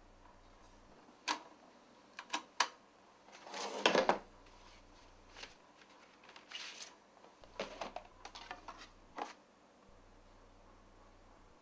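Handling noises as a vinyl LP is set on a portable record player: a few sharp clicks and knocks, a louder rustling clatter about four seconds in, then a run of lighter clicks.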